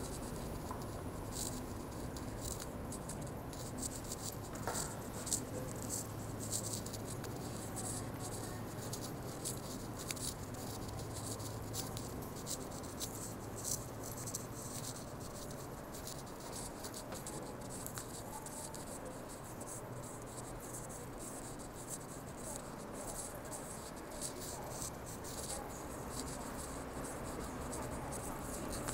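Footsteps on a tiled floor, a quick irregular ticking of shoes, over a steady low hum.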